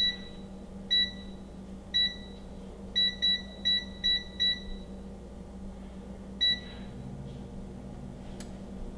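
Gourmia digital air fryer's touch-control panel beeping as its buttons are pressed to switch it on and start preheating. Nine short high beeps: three about a second apart, then a quick run of five, then one more a couple of seconds later.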